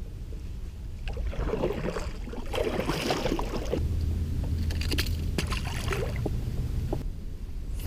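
Water sloshing and splashing against a kayak's hull in uneven surges, over a steady low rumble.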